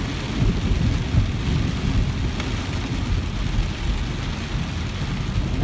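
Heavy storm rain pelting a car's windscreen and roof, heard from inside the cabin: a steady dense hiss over a deep, continuous rumble.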